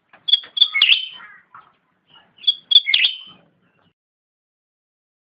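Cucak rante singing two short song phrases about two seconds apart. Each phrase is a few quick, sharp high notes followed by a longer, rougher flourish.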